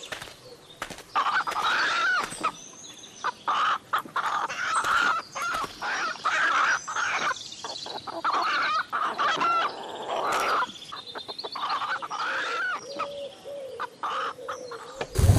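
A flock of hens clucking in a coop, many short calls one after another, with scattered clicks and scratching. Right at the end a loud low rumble cuts in.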